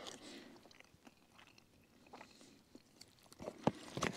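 A person chewing a mouthful of camp food eaten from a pouch. A few sharp clicks and a rustle near the end as the spoon goes back into the foil pouch.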